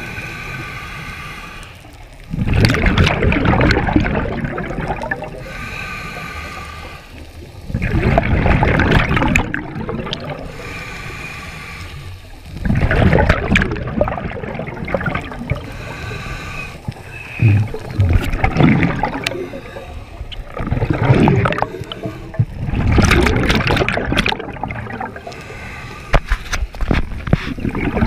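A scuba diver's regulator breathing: a hissing inhale through the demand valve alternating with a loud bubbling exhale, about once every five seconds. The rhythm turns shorter and less regular in the second half.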